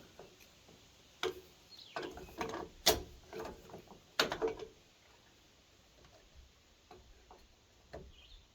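Sharp metal clicks and clanks as vise grips are clamped onto a string trimmer's shaft fitting and worked to turn a stuck part loose, a cluster of them through the middle, then a few light ticks.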